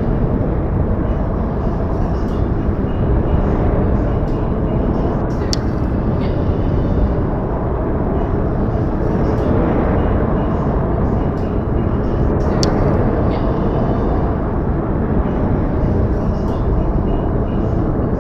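Outdoor snowfall ambience: a steady low rumbling noise with a few faint ticks scattered through it.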